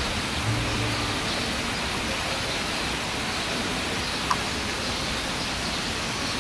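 Fountain water splashing into a garden pool, a steady rushing hiss. A single short click about four seconds in.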